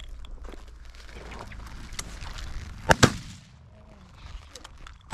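Shotgun fired at a flushed quail: two sharp reports close together about three seconds in, and another right at the end.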